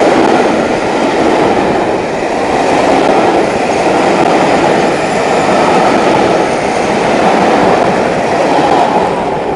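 A train hauled by the Peppercorn A1 steam locomotive 60163 Tornado running through the station at speed: a loud, steady rush and rumble of wheels on the rails that eases slightly about two seconds in.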